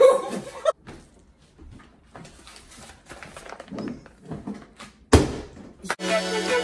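A single loud, sharp hand slap about five seconds in, after a few seconds of faint rustling and movement.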